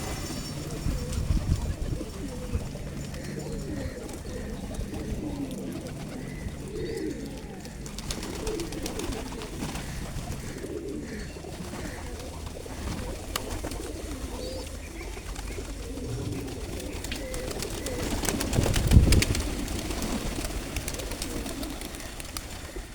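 Pigeons cooing repeatedly in low, rolling calls, with a louder burst of noise about nineteen seconds in.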